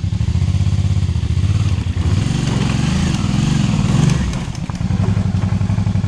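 Twin-cylinder adventure motorcycle engine running and revving up and down as the bike is walked under power over a rocky culvert washout.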